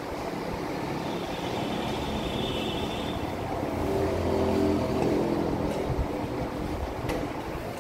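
Steady mechanical drone of running machinery, with several held low tones that slide slightly in pitch in the second half and a faint high whine early on.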